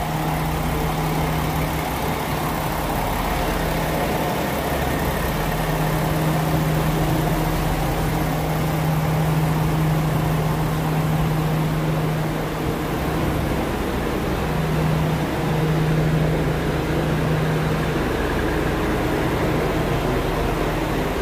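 Diesel railcar engine running steadily with a low, even hum that dips briefly about two-thirds of the way through.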